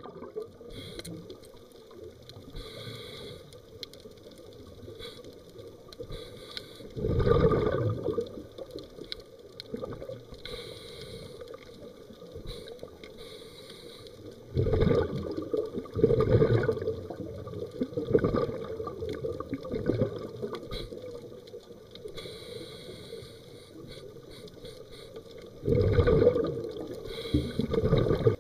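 Underwater recording of a scuba diver's exhaled air bubbling out of the regulator: loud bubbling rushes about a second long, several times, over a steady low underwater hiss.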